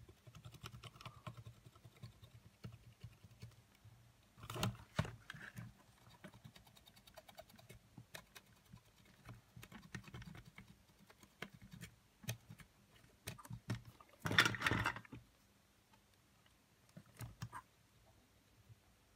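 Cotton swab scrubbing the metal contacts of an opened Sony WM-FX811 cassette Walkman while it is handled: faint scattered clicks and scratching, with two louder scraping rubs, one about a quarter of the way in and one about three quarters through.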